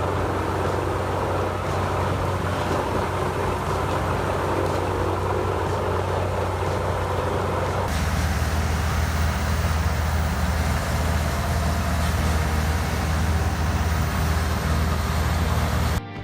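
Heavy forestry machinery's diesel engine running steadily under load, with a deep hum and a broad mechanical noise. The sound changes abruptly about halfway through.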